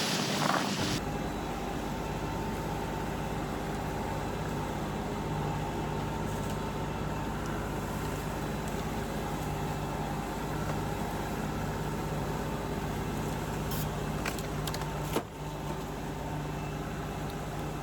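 Vehicle engine running at a steady speed, a constant hum with a few fixed tones, with a brief knock about fifteen seconds in.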